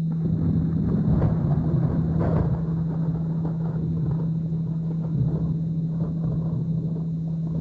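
A steady low hum at about 165 Hz, the carrier of a binaural-beat tone, under a rolling thunder rumble that sets in right at the start and swells with crackles about one and two seconds in.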